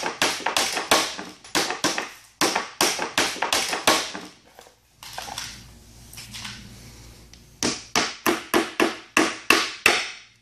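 A hammer driving nails through metal roof flashing into an OSB board: sharp, rapid blows about three a second, a pause of about three seconds in the middle, then another quick run of blows.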